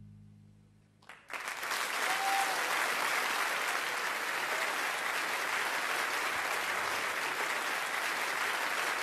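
Music fading out, then about a second in a crowd breaks into steady applause that carries on throughout.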